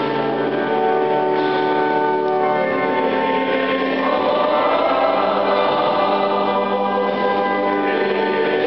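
A Latin hymn sung by many voices with organ accompaniment, long held notes echoing in a highly reverberant domed church.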